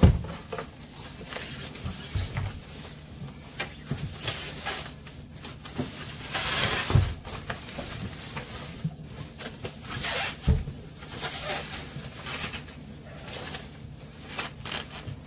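A large plastic protective bag rustling and crinkling as it is handled around a heavy boxed appliance, with a few dull knocks: near the start, about seven seconds in and about ten seconds in.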